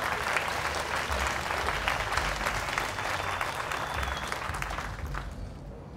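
Large audience applauding, the clapping thinning out and fading away about five seconds in.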